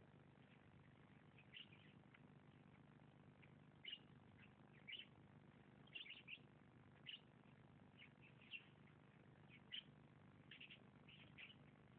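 Faint, short bird chirps, scattered irregularly about once a second, over a low steady background hum.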